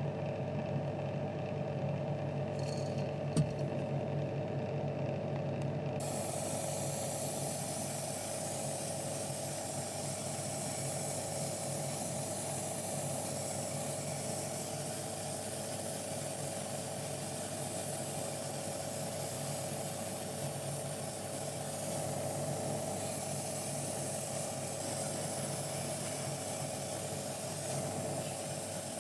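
Steady hum of a small electric motor in a spray-painting setup, with a light click a few seconds in. About six seconds in a continuous airy spray hiss joins the hum and goes on throughout, as paint is sprayed onto a small diecast car body.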